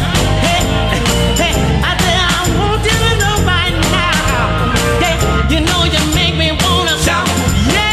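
Background music: an upbeat song with a lead singer over a full band and a steady beat.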